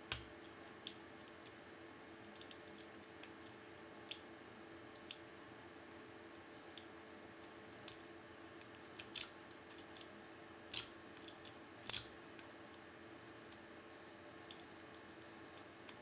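Small, irregular metallic clicks and ticks of a lock pick and tension wrench working the pin tumblers in the keyway of a Federal Lock 8102 padlock. There is a quick cluster of clicks a little past halfway, then two louder clicks.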